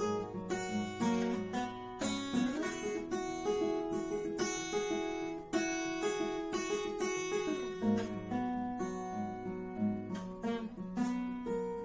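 Acoustic guitar playing an instrumental passage with no singing: repeated strummed chords that ring on between strokes.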